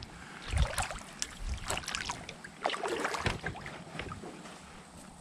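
Small boat being moved through shallow water with a series of irregular splashing strokes, about one a second, growing fainter near the end.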